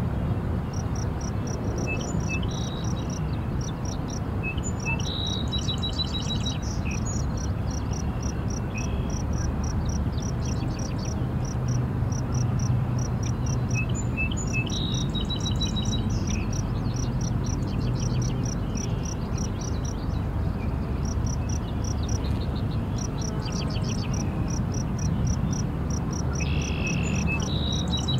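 Summer field ambience: an insect chirping in fast, even pulses, in runs with short breaks. A bird sings a short phrase ending in a trill three times. A steady low rumble runs underneath.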